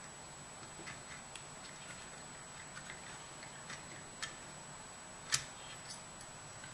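Scattered small clicks and taps of metal hardware as a hex screw and nut are worked in by hand to clamp an IGBT to its heat sink, with one sharper click about five seconds in.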